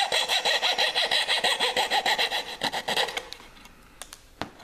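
Coping saw cutting across plywood with quick, even strokes, about five a second. The sawing stops about three seconds in as the cut finishes, and a few light clicks and a knock follow.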